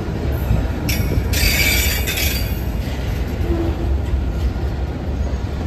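BNSF autorack freight cars rolling past at close range: a steady low rumble of wheels on rail, with a high-pitched wheel squeal from about one second in until about three seconds in.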